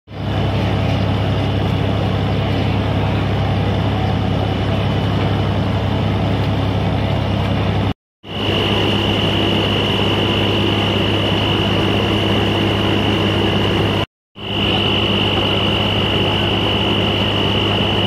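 Fishing boat's engine running steadily, a deep even drone; after about eight seconds a steady high whine joins it. The sound cuts out briefly twice.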